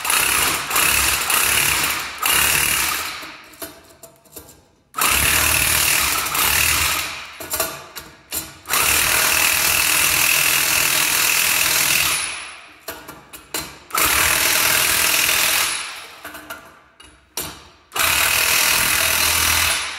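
Impact wrench run in about six bursts of two to three seconds each, tightening the pinion nut on a Dana 30 axle's yoke to bring the pinion bearings up to preload during gear setup.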